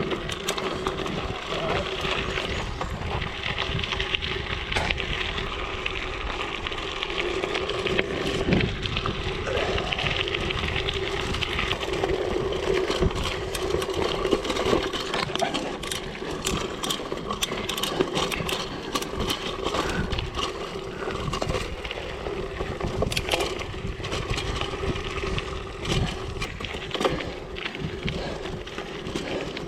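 Mountain bike tyres rolling steadily over gravel, with a constant crunch and many sharp crackles of loose stones popping under the wheels, and a steady low hum from the tyres.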